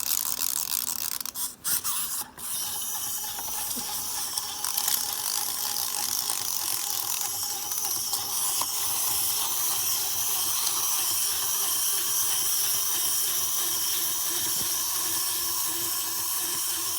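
Clockwork motors of small wind-up plastic toy figures running, a steady high-pitched whirring buzz, with a couple of brief breaks in the first two seconds before it settles into a continuous run.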